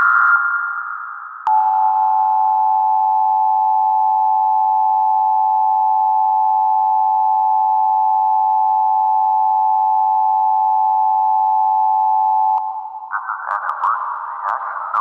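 Emergency Alert System attention signal: a steady, harsh two-tone beep that starts about a second and a half in and cuts off suddenly about twelve and a half seconds in. A fading electronic tone comes before it, and a warbling, crackly electronic sound with clicks follows near the end.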